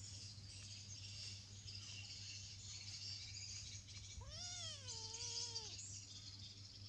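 A kitten meows once, a drawn-out call of about a second and a half that rises, wavers and falls away, a little after four seconds in.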